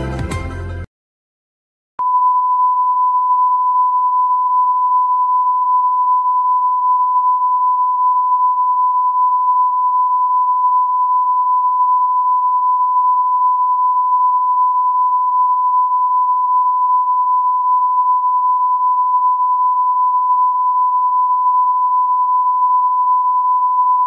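Steady 1 kHz television line-up test tone sent with colour bars while the channel is off air between broadcasts. It starts about two seconds in after the tail of advert music cuts off into a moment of dead silence.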